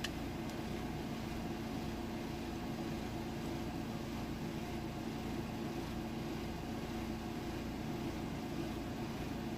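Steady background hum with a few constant low tones and no clear clicks or knocks.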